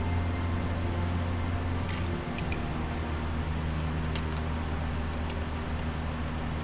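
Light metallic clinks and clicks, scattered from about two seconds in, of water pump bolts and a socket on an extension as the bolts are started by hand. A steady low hum runs under them throughout.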